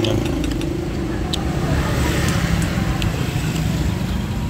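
Passing road traffic, a steady engine rumble of vehicles on the street, with a few light clicks about a second and a half in and again near three seconds.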